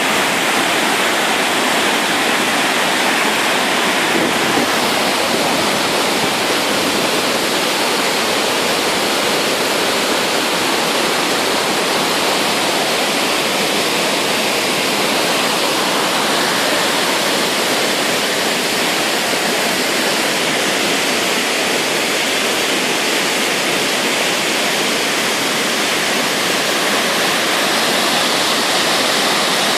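Waterfall: the steady, loud rush of falling water, unchanging throughout.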